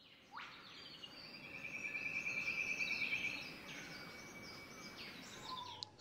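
Sound effects of an animated logo intro: soft sweeping whooshes and high chirping tones, with a fluttering tone through the middle.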